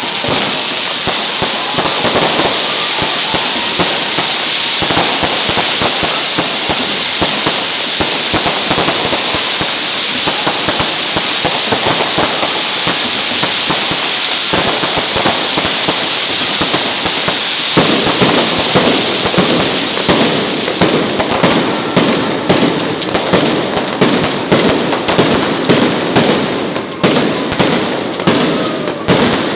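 Fireworks going off in a dense, continuous crackle of rapid pops. From about twenty seconds in the pops grow louder and more separate.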